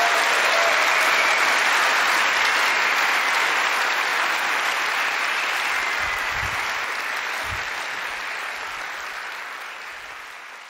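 A large lecture audience applauding, the clapping fading out steadily over the last few seconds. Two dull low thuds sound a little past the middle.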